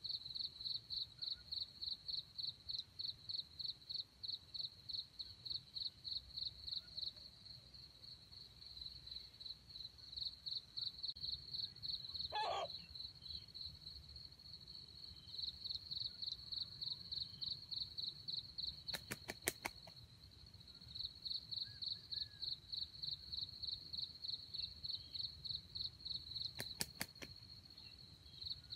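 Insect chirping in a steady high-pitched pulse, about three pulses a second, in long runs broken by short pauses. A brief lower call sounds near the middle, and two quick runs of sharp clicks come later.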